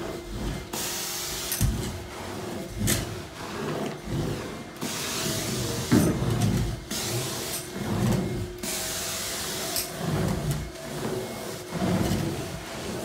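Carpet extraction machine with its vacuum motors whining steadily as the cleaning wand is drawn across the carpet. A suction surge comes every second or two, and in three spells the jets hiss as hot water is sprayed into the pile.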